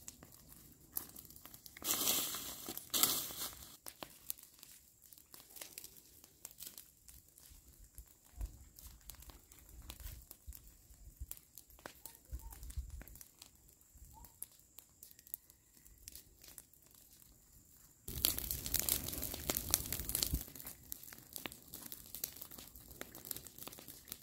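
Burning pile of dry brush crackling, with many small pops and snaps. Two louder bursts of rustling noise, about two seconds in and again near the end.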